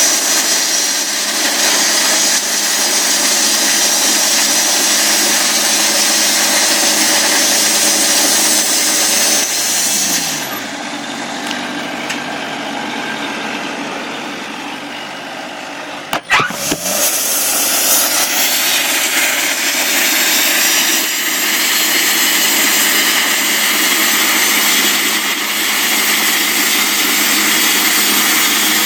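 A portable sawmill's engine running at speed. About ten seconds in it winds down to a lower, quieter run; about six seconds later a sharp knock comes and it speeds back up to full running.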